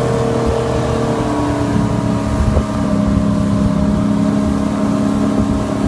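Motorboat engine running under way, pulling a towed tube; its pitch drops about one and a half seconds in, then holds steady.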